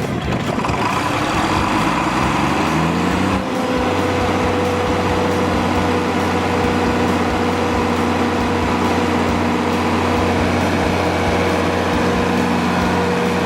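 John Deere inline six-cylinder turbocharged diesel engine of a Kohler 175 kW generator starting. It catches suddenly, climbs in pitch for about three and a half seconds, then settles into a steady run at constant speed.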